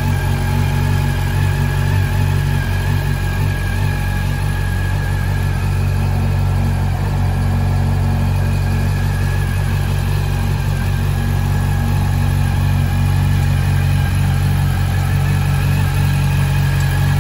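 Honda CB400 Super Four VTEC Revo's inline-four engine idling steadily, with no revving.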